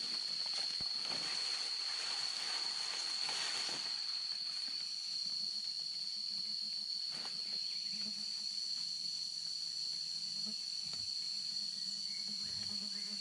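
Insects droning at one steady high pitch throughout. For the first few seconds there is also a rustling, crackling noise with small clicks, as of dry vegetation being disturbed.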